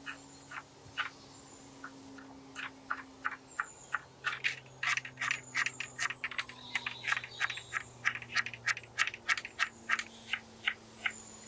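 Kitchen knife chopping a tomato and then an onion on a wooden cutting board: sharp blade-on-board taps, a few scattered ones at first, then a steady run of about four a second from a few seconds in.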